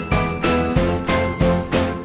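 Upbeat background music with a steady beat and bright jingling, bell-like notes.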